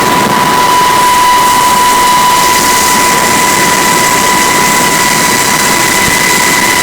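UH-60 Black Hawk helicopter heard from inside the cabin: a loud, steady rush of turbine and rotor noise with a steady high-pitched whine running through it.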